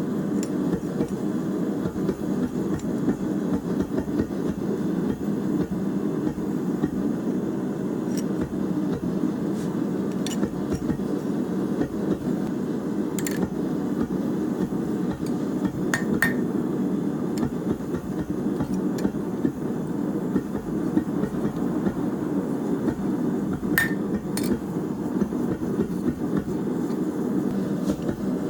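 A forge running steadily, with a few light, sharp metal clinks now and then, such as the workpiece or tongs touching metal.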